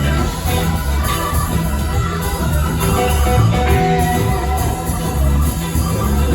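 Live rock band playing an instrumental jam, with electric guitar over bass and drums.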